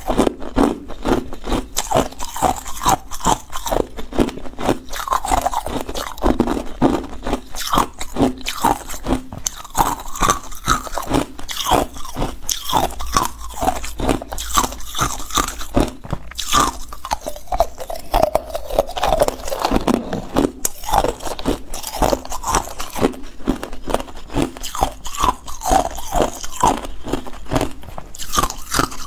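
Ice cubes being bitten and chewed: a steady run of loud, crisp crunches, several a second, close-miked.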